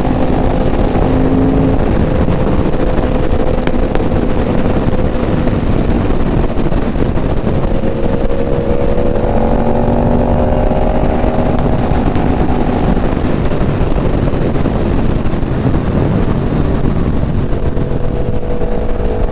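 Sport motorcycle engine running under way over heavy wind rush on the microphone. The engine note holds fairly steady, then climbs gradually about halfway through as the bike accelerates.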